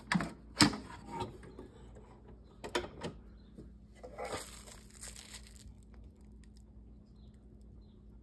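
Handling noises at a GoldXpert XRF analyzer: a few sharp clicks and knocks in the first three seconds as its lid and sample chamber are worked, then about a second and a half of plastic rustling, like a small bag of silver crystals being handled.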